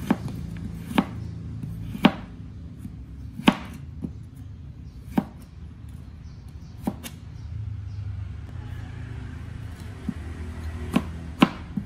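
Broad-bladed kitchen knife chopping carrot into thin strips on a plastic cutting board: about eight sharp knocks as the blade hits the board, one every second or two. There is a pause of about four seconds before the last two knocks, which come close together.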